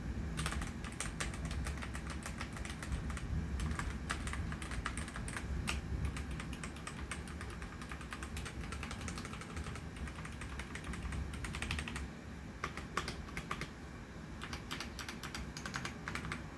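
Typing on a Redragon Castor K631 mechanical keyboard: a continuous, irregular clatter of key switches clicking down and springing back.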